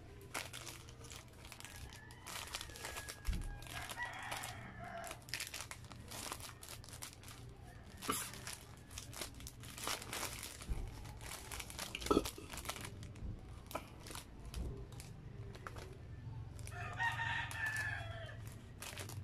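Plastic sandwich wrapper crinkling as it is torn open and crumpled by hand. A rooster crows twice in the background, about four seconds in and near the end.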